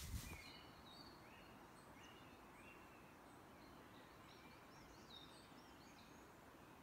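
Faint birdsong: scattered short, high chirps and whistles, some in quick up-and-down curls, over a quiet hiss. A louder noise dies away just at the start.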